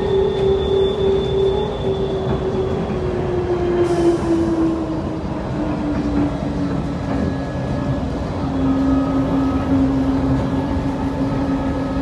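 Ride noise inside an automated airport people-mover train (DFW Skylink) running along its elevated guideway: a steady rumble of wheels with a motor whine that falls slowly in pitch. A faint high whistle fades out about three seconds in.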